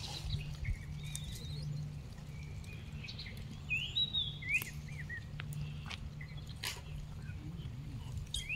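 A few short high chirping calls, rising and falling, bunched in the middle, over a steady low hum, with a few sharp clicks toward the end.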